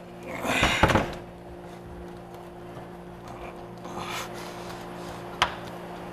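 Rubber refrigerator door gasket being pushed and rubbed into the door's retaining groove: a loud rubbing scrape in the first second, a shorter one about four seconds in, and a sharp click near the end, over a steady low hum.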